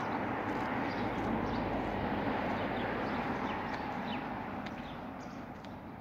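Outdoor street noise: a steady rush like passing traffic that slowly fades near the end, with small birds chirping briefly now and then.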